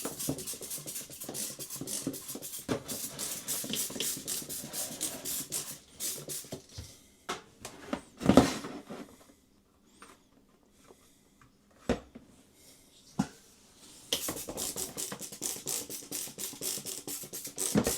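Trigger spray bottle squeezed rapidly over and over, a fast run of short hissing squirts, several a second, in two long spells with a quieter gap between them. A louder knock comes about eight seconds in, and a couple of sharp clicks follow in the quiet stretch.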